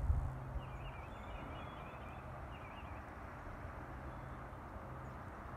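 Outdoor ambience of small birds chirping in short warbling phrases over a steady low hum, with low buffeting on the microphone in the first half second.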